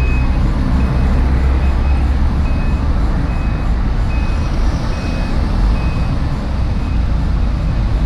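A vehicle's reversing alarm sounding a short high beep a little more than once a second over a heavy low rumble of engine and street noise.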